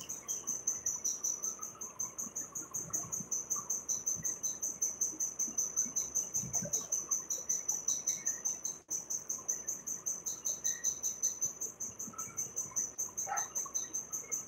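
Cricket chirping: a high trill of rapid, even pulses.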